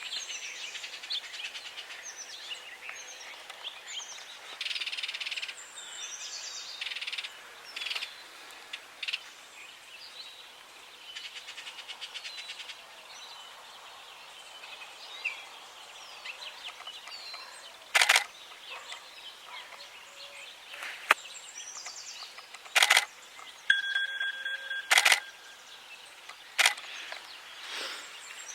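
Small birds chirping and twittering on and off, with several sharp clicks in the second half and a brief steady beep about two-thirds of the way through.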